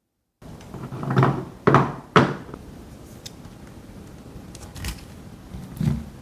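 A few sharp knocks and bumps of small objects being handled and set down, the loudest about two seconds in, over a steady hiss.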